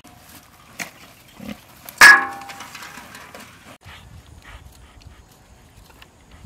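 A single short, loud animal call about two seconds in, sudden at the start and fading within half a second.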